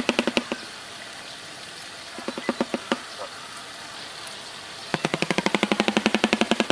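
Shoebill clattering its bill: a fast, machine-gun-like rattle of about eight knocks a second that breaks off about half a second in, a few slower clacks in the middle, then the rattle starting again near five seconds in.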